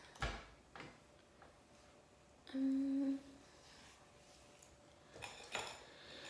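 A woman hums one short, steady note about two and a half seconds in. Faint clicks and rustles come before and after it.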